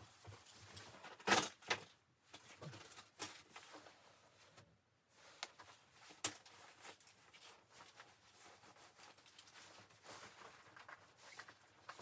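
Scattered sharp knocks and clicks over faint rustling, the loudest about a second and a half in and another about six seconds in.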